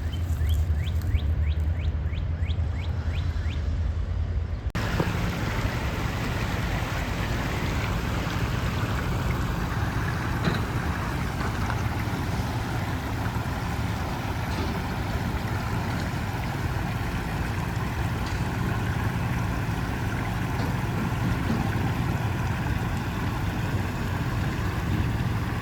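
Vehicle running with steady engine and road rumble; the sound changes abruptly about five seconds in, from a low hum with faint rising chirps to a fuller, noisier rumble.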